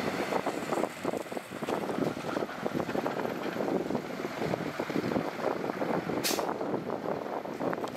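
Diesel heavy equipment running at work, a rough, uneven mechanical noise throughout, with a brief high-pitched hiss about six seconds in.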